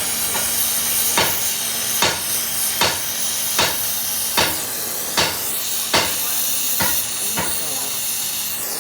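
Steady hiss of a gas torch used for silver brazing, with sharp taps repeating at a steady pace of a little more than one a second.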